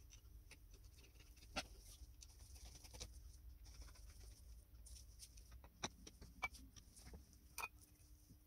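Near silence broken by a few faint, sharp clicks and taps: metal on metal as the cast-iron grinder's comb plate is fitted and a screwdriver is set to its slotted screws.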